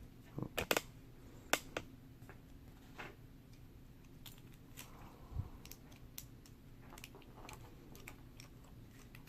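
Small metal clicks and taps from handling the parts of a Yale & Towne safe deposit box lock: a cluster of sharper clicks in the first two seconds, then scattered light ticks.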